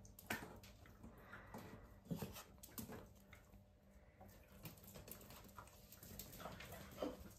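Dachshund puppy giving a few faint, short whimpers, spread out over several seconds, with light ticks of its claws on the tile floor.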